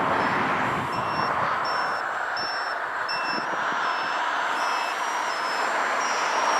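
An electronic beeper on RC model gear beeping repeatedly, short high-pitched beeps about once every two-thirds of a second, over a steady rushing noise.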